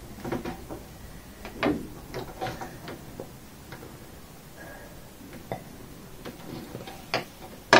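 Wax crayon drawing on paper laid on a wooden table: short, irregular scratchy strokes and light taps, with a sharp knock near the end.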